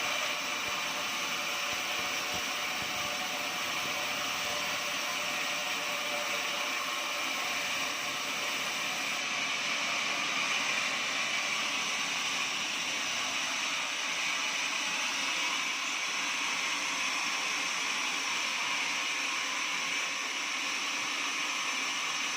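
Sawmill saw running steadily through an oak log: an even rush of noise with several held tones above it, unchanging throughout.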